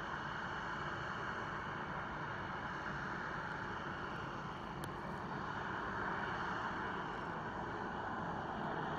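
Boeing 737 jet's two turbofan engines running at low taxi power as it rolls slowly and turns: a steady rumble with a faint high whine.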